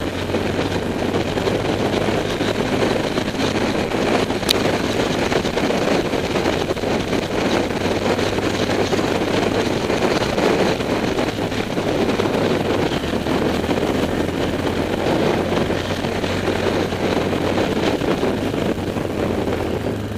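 Yamaha Grizzly 450 ATV's single-cylinder four-stroke engine running steadily with a low hum as the quad rides along a trail, with wind rushing over the camera microphone. There is a single sharp click about four and a half seconds in.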